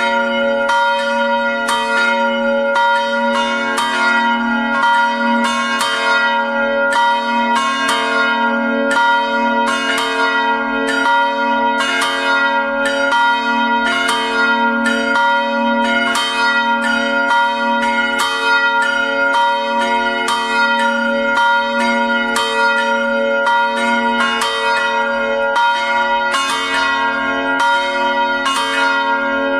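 Peal of swinging bronze church bells from a three-bell Felczyński-cast set (strike notes about F♯, C♯ and B♭), clappers striking several times a second in an uneven, overlapping pattern. Each stroke leaves a long ringing tone over a continuous low hum.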